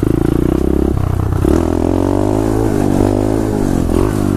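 2015 SSR 125cc pit bike's single-cylinder four-stroke engine running as it is ridden. The engine is steady at first, then its pitch rises and falls with throttle changes from about a second and a half in.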